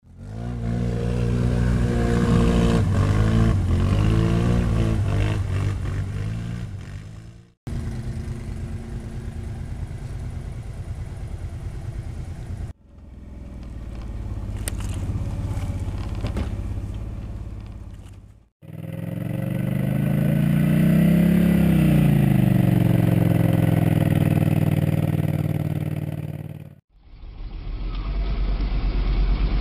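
ATV engines revving, in five short clips that cut off abruptly; the pitch rises and falls with the throttle, and the last clip holds a steadier low running note.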